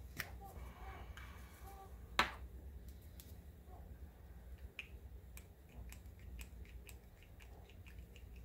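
Faint clicks and taps from a small cosmetic container being handled: one sharp snap-like click about two seconds in, then a run of light, uneven ticks.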